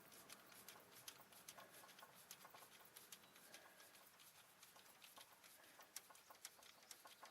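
Near silence with many faint, irregular small clicks and taps, like hands and small tools handling parts.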